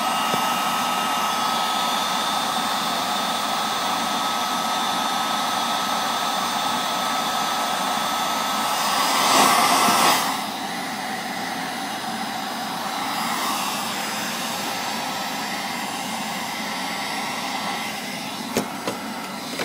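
Heat gun blowing hot air to shrink heat-shrink tubing over an LED strip's soldered wire joint, a steady rush of air with a thin whine. About halfway through it briefly gets louder, then carries on more quietly, with two short clicks near the end.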